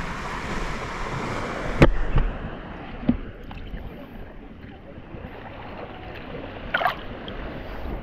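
Black Sea waves washing onto the beach. There is a sharp knock about two seconds in and a short splashy burst near the end.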